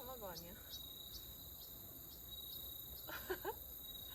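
Crickets and other insects trilling steadily in high continuous tones, with faint regular chirps about two to three a second. A faint voice is heard briefly near the start and again about three seconds in.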